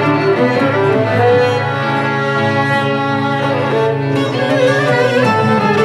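Bowed string music: a sustained low note held under a slowly moving melody.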